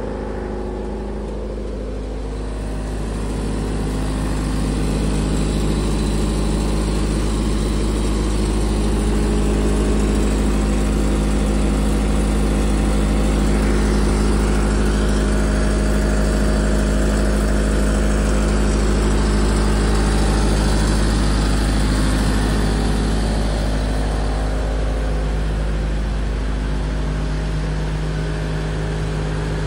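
Doosan 30 kVA diesel generator engine running steadily during a load bank test. It grows louder a few seconds in and drops back near the end.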